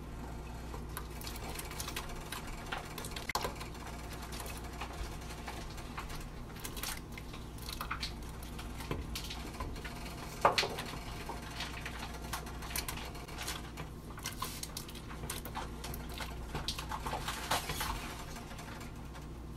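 Kitchen handling sounds: scattered light clicks and knocks of utensils and dishes, with one louder knock about halfway through, over a low steady hum.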